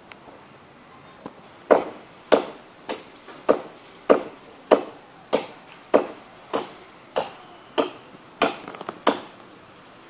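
A coconut palm being chopped with a hand-held blade: about thirteen sharp, even strokes into the wood, roughly one and a half a second, starting about two seconds in.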